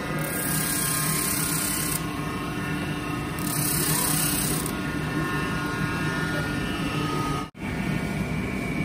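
Stationary belt sander running with a steady motor hum while a small piece of wood is pressed against the belt, the sanding hiss swelling in two spells. The sound breaks off abruptly near the end.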